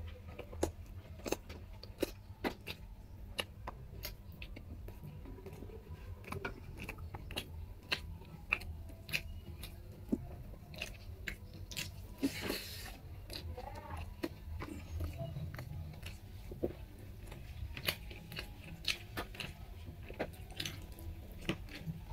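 A person eating rice and curry with his hand: close chewing with many small sharp mouth clicks and smacks, and one brief louder rush of sound about twelve seconds in as a handful goes into the mouth. A steady low hum runs underneath.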